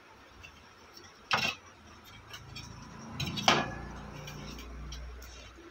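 Metal clinks and knocks as the aluminium transistor heatsink is handled in the amplifier's sheet-metal case, with two sharp knocks about a second and three and a half seconds in, the second the loudest, and a low hum through the second half.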